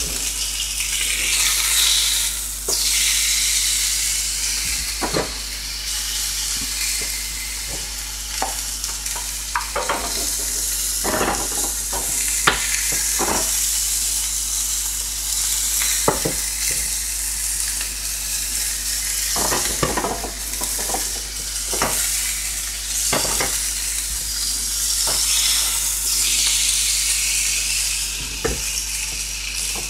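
T-bone steak sizzling in a hot frying pan, a steady hiss with scattered clicks and knocks of utensils against the pan.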